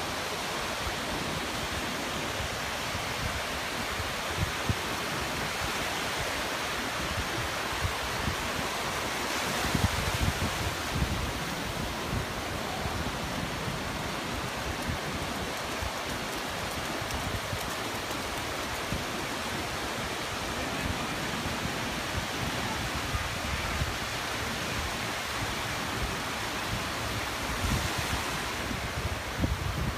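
Ocean surf washing steadily on the beach, with wind buffeting the microphone in low rumbling gusts about ten seconds in and again near the end.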